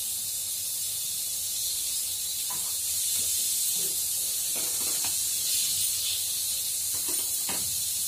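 Steady high hiss from an aluminium pressure cooker heating on a gas burner, building pressure before its first whistle.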